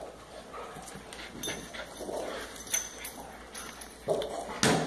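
A puppy and a larger dog tugging and mouthing at a chew toy, with short dog sounds throughout and two louder bursts near the end.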